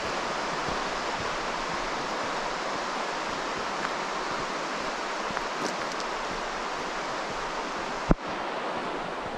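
Steady rushing of a fast, rain-swollen river running over shallow riffles, with a single sharp thump near the end.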